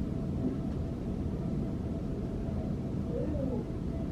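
Steady low rumble of a moving vehicle, with a few faint thin tones above it.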